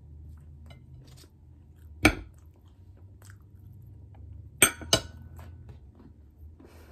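Close-up chewing of a taco, with a sharp knock about two seconds in and two quick clinks of a dish or utensil a little later.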